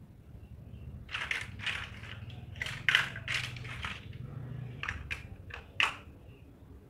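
Hollow plastic toy building blocks clattering and knocking against each other as a hand rummages through a pile of them, with a sharp click near the end as one block is pressed onto another.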